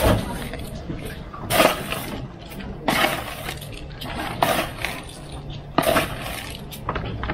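Kitchen utensils and dishware clinking and scraping: a string of irregular sharp clinks, a few of them close together in pairs.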